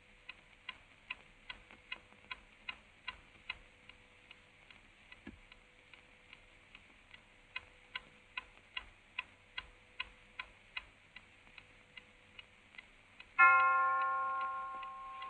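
A clock ticking evenly, about two and a half ticks a second. Near the end a single bell-like chime is struck once and rings on as it fades.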